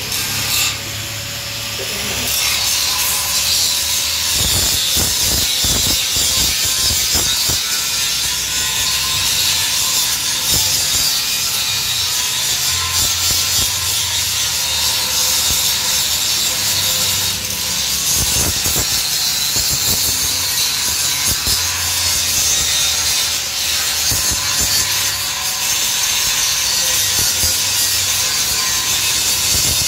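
Handheld angle grinder grinding a welded steel gate frame: a steady whine over a continuous grinding hiss, louder from about two seconds in as the disc bears on the metal.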